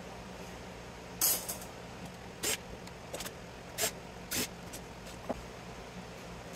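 Short bursts of a cordless drill-driver backing screws out of a variable frequency drive's sheet-metal chassis, about six in four seconds, the first the loudest, over a steady low hum.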